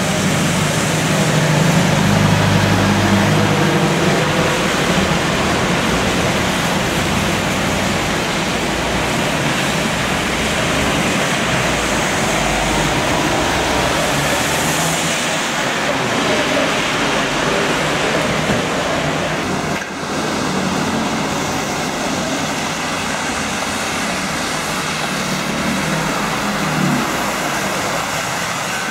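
Double-decker buses passing close on a wet road, their diesel engines running low and loudest in the first few seconds, with a steady hiss of tyres on the wet surface. After about twenty seconds a few faint steady whines join the hiss.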